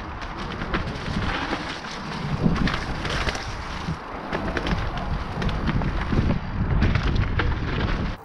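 Wind buffeting a helmet-mounted camera's microphone as a mountain bike descends a rough dirt trail, over a steady rush of tyres on dirt and frequent rattles and knocks from the bike over bumps.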